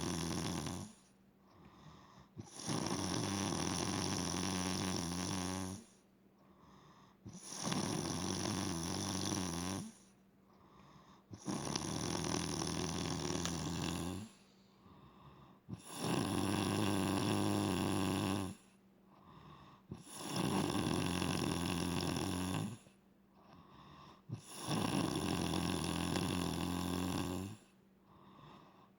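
A sleeping woman snoring loudly, sounding like a chainsaw. Long snores of about three seconds each come roughly every four seconds, with short quiet pauses between them.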